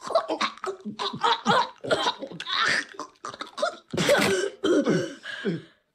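Two cartoon toddlers' voices choking, gagging and coughing, with laughing, as they cram small objects into their mouths. It is a rapid run of short vocal noises that stops just before the end.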